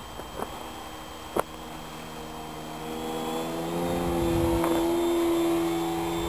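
Electric motor and propeller of a 40-inch 3DHS Edge 540 RC aerobatic plane whining at a steady pitch, growing louder about halfway through as the plane comes near. Two sharp clicks in the first second and a half.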